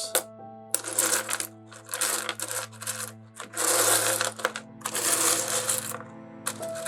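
Small pieces of rough opal rattling and clattering on a tray as they are moved around by hand, in four bursts of about a second each, then a few single clicks near the end. Soft background music plays underneath.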